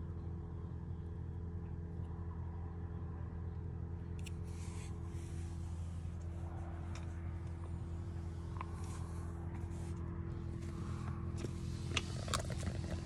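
A steady low mechanical hum, with light clicks and scrapes of hands handling fishing tackle and a few sharper plastic clicks near the end.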